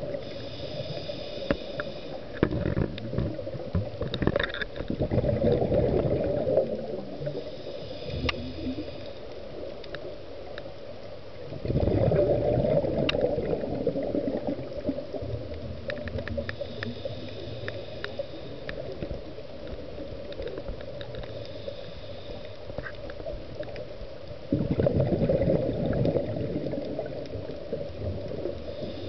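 Scuba diver's regulator breathing underwater: exhaled bubbles burble up three times, each burst about three to four seconds long and roughly ten seconds apart, with quieter inhalations through the regulator between them.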